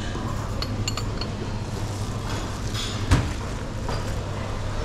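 Light clinks of china and tableware at a buffet, over a steady low room hum, with a single sharper knock of a dish on the tray about three seconds in.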